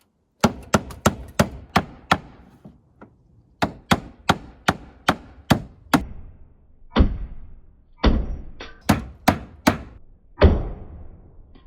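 Hammer driving nails into a wooden trim board: two quick runs of sharp strikes, about three a second, then a few heavier, duller blows near the end.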